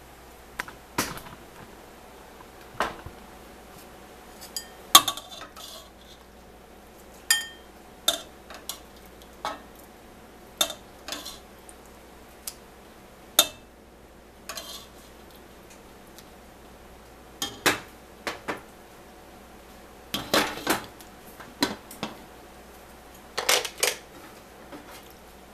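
Metal utensil clinking and scraping against a stainless steel pot as cooked black-eyed peas are dished into a bowl, with the pot's glass lid handled and set back on. Sharp separate clinks come irregularly, some in quick clusters of two or three.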